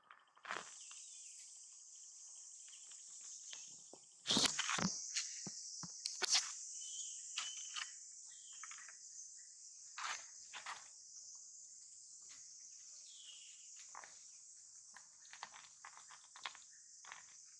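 Steady, high-pitched buzzing of insects, with scattered knocks and rustles and a few short chirps over it. The loudest knocks come about four to six seconds in.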